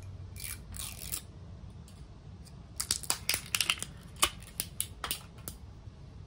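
Seal being peeled and torn by hand from the cap of a sake bottle: a couple of soft rustles, then a run of sharp crackling snaps from about three to five and a half seconds in.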